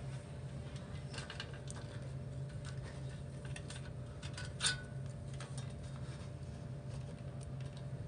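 Light clicks and small taps from handling a monitor's display-cable connector as it is unplugged, with one sharper click about four and a half seconds in, over a steady low hum.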